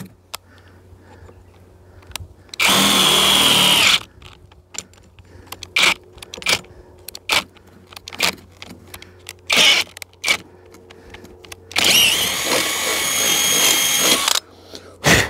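Cordless drill boring through a metal outrigger tube in two runs with a steady whine, a short one about three seconds in and a longer one of two to three seconds near the end. Short clicks and knocks of handling fall between the runs.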